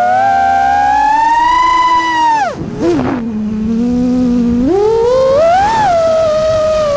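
Six-inch iFlight Nazgul Evoque F6D V2 FPV quadcopter's brushless motors and propellers whining, the pitch creeping up and then dropping steeply about two and a half seconds in as the throttle is cut. The whine holds low for a couple of seconds with one brief blip, then rises again about five seconds in as the throttle is punched back up.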